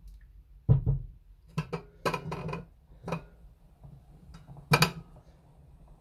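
A plastic spoon stirring in a pot of rice and water, knocking and scraping against the pot several times; the loudest knocks come about a second in and near the end.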